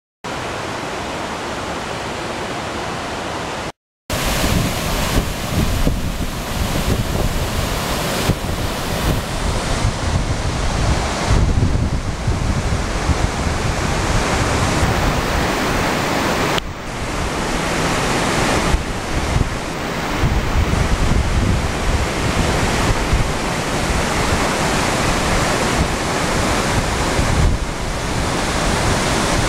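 Waterfall rushing: a steady roar of falling water, quieter and more distant for the first few seconds, then loud and close after a brief break. Wind rumbles on the microphone under it.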